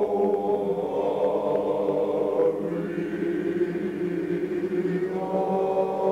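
Men's choir singing long held chords in several parts, moving to a new chord a few times.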